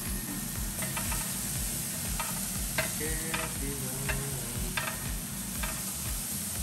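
Beef burger patties sizzling on a ridged grill pan while a slotted spatula scrapes and taps against the pan, turning them over, with short clicks about every half second to second.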